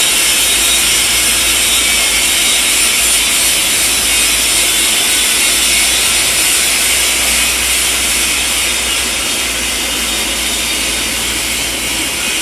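Electric welding arc on a stainless steel pipe joint: a steady, rough hiss that runs without a break.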